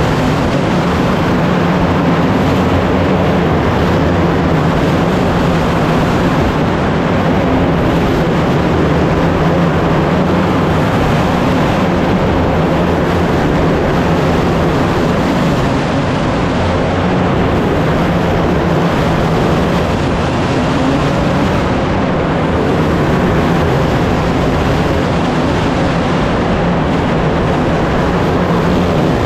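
Race car engines running on track, a loud steady drone of several engines at once with no break.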